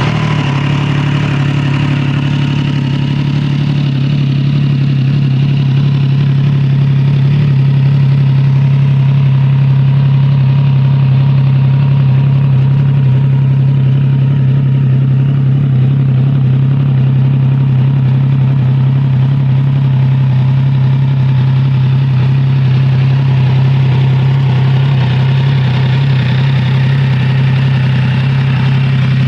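Triumph Trident 660's 660 cc inline three-cylinder engine idling steadily through its exhaust just after a cold start.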